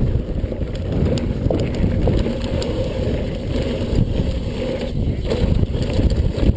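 Mountain bike riding fast down a dirt singletrack trail: steady low rumble of the tyres over the dirt and the bike rattling, mixed with wind buffeting the camera microphone, with a few faint clicks.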